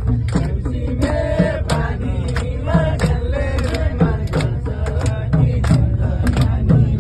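Background music with a steady beat and a vocal melody.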